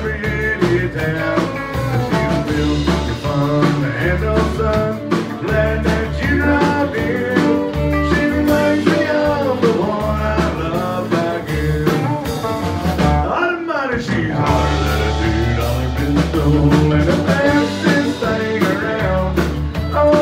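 Live country band playing: fiddle, acoustic and electric guitars, bass guitar and drums over a steady beat. The sound thins briefly with a sliding note about thirteen seconds in.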